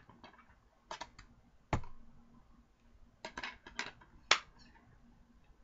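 A plastic DVD case being handled and worked open by hand: scattered clicks and crackles, with a cluster of clicks past the middle and the sharpest click about four seconds in.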